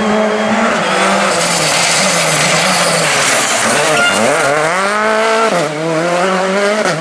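Citroën C3 Rally2 rally car's turbocharged four-cylinder engine held at steady revs through a tight corner with tyre hiss on the wet tarmac. About four seconds in it revs up hard out of the corner, with a gear change about five and a half seconds in and another at the end.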